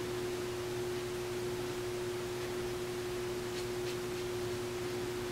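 A steady hum at one middling pitch over a faint even hiss, with two faint soft ticks about two-thirds of the way through.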